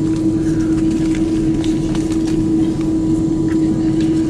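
Cabin noise of an Airbus A330-200 taxiing at engine idle, heard from a window seat: a steady hum with one constant low tone and a rumble beneath it.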